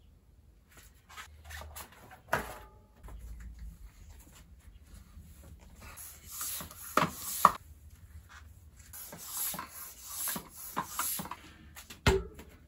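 Handling noises from a freshly built bicycle wheel: rubbing and scraping with a few sharp knocks, the loudest about two seconds in, around seven seconds in and near the end.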